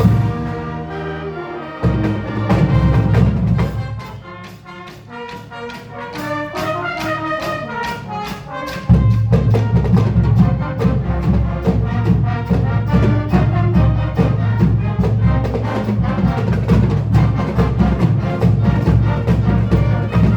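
A marching band with brass and percussion playing its show music. It drops to a softer passage a few seconds in, then the full band comes back in loud about nine seconds in.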